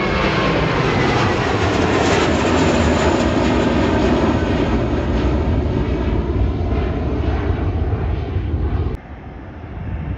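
Twin-engine Airbus A321 airliner climbing out after takeoff: loud, steady jet engine noise with a deep rumble, slowly fading as the aircraft draws away. The sound cuts off abruptly about nine seconds in, leaving a much quieter background with a faint swell of distant jet noise.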